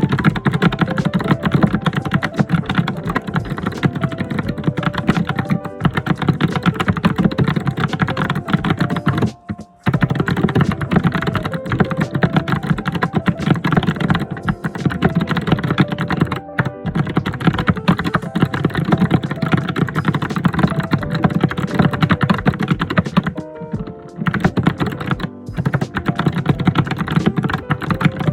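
Fast, continuous typing on a computer keyboard: a dense, loud run of keystroke clicks with a brief pause about nine and a half seconds in.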